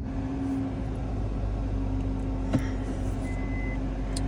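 Car engine idling steadily just after being started, heard from inside the cabin. A couple of light clicks and a short high beep about three seconds in.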